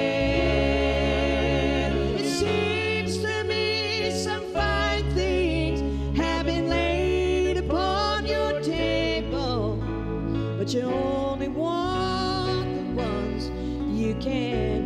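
A slow ballad played live by a small band: keyboard, electric bass and a slide guitar on a resonator, with a singing voice. The slide guitar's notes glide up into pitch about midway through.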